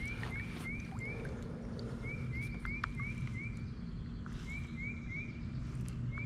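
A songbird singing phrases of short rising whistled notes, four to six quick notes in each, repeated four times, over a steady low hum and a few small clicks.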